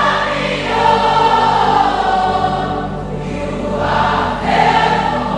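A congregation's many voices chanting together in unison, like a choir, over a sustained worship music backing.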